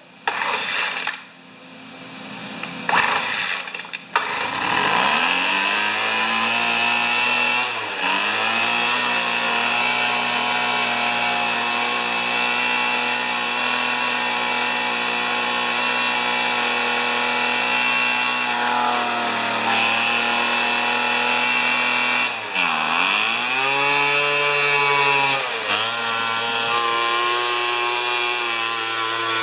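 Weed Eater leaf blower's small two-stroke engine on a cold start with full choke. It sputters a few times, catches about four seconds in and revs up, then keeps running, its speed dipping and recovering a few times.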